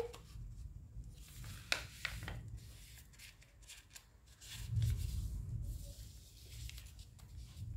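A sheet of printer paper being folded in half and creased by hand: faint rustles and scrapes, with a sharp tap just under two seconds in.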